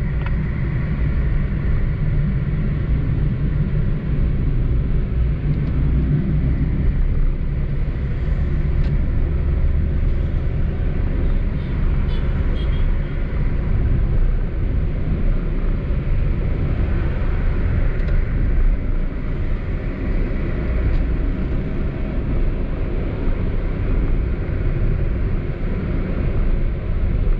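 Car driving on a wet road in the rain: a steady low rumble of engine and tyres with an even hiss of road spray.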